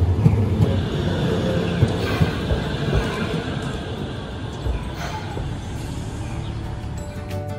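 Hiroden 800-series streetcar passing close by and pulling away. Its motor hums low, and the steel wheels grind and knock on the street rails a few times before the sound fades.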